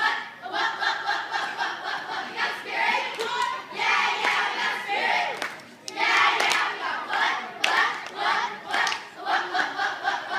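A squad of cheerleaders shouting a cheer together in a steady rhythm, with a few sharp hits among the chanting.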